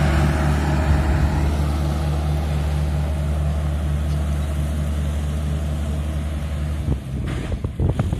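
Mahindra Arjun 555 DI tractor's four-cylinder diesel engine pulling a loaded trolley, a steady low drone that slowly fades as the tractor draws away. About seven seconds in it drops off, and a few rough gusts of wind hit the microphone.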